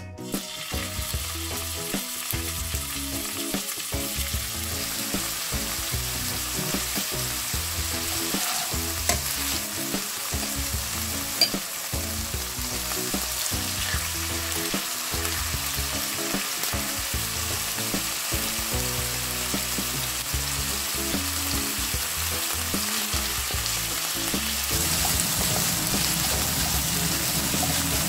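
Strips of marinated pork sizzling as they fry in hot groundnut oil in a nonstick wok, being turned and stirred, with a few sharp clicks of utensils on the pan. The sizzle grows louder near the end as the pan fills.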